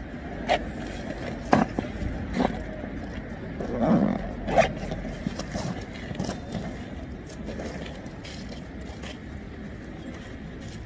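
A few knocks and scrapes as a delivery backpack is handled and swung up onto a person's back, over steady street traffic noise.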